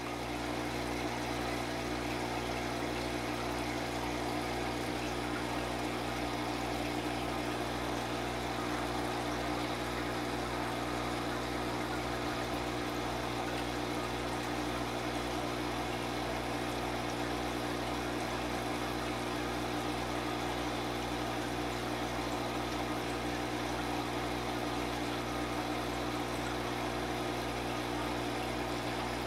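Steady hum of an aquarium air pump with constant bubbling from the air-driven filter tube in the tank.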